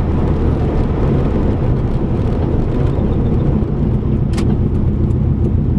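2005 Subaru WRX driving at a steady, gentle pace, its turbocharged flat-four engine and tyres making a continuous low rumble; the engine still carries a slight misfire that the owner puts down to a bad coil pack. A single sharp click sounds about four seconds in.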